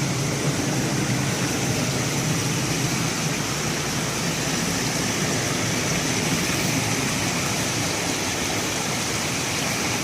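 Waterfall on a creek rushing steadily, a dense, even noise that holds at the same level throughout.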